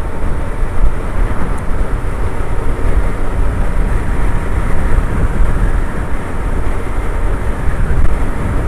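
Suzuki Hayabusa's inline-four running smoothly at a steady cruise, blended with wind and road noise.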